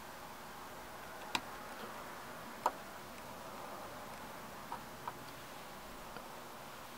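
A few small, sharp clicks of small tools and tiny metal parts against the opened iPhone 5c as its battery shield is refitted: two louder clicks in the first three seconds, then a few fainter ones, over a faint steady hiss.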